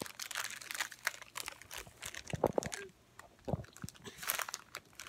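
A crinkly plastic packet being handled and crumpled in the hands, irregular crackling and rustling with a few stronger crunches about halfway through.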